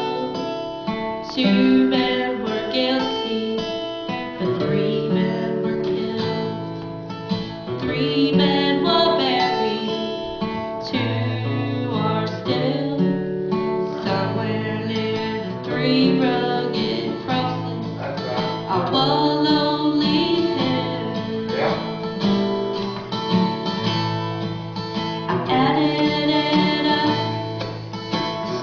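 Music: a Christian song played on acoustic guitar, with sustained notes and chords.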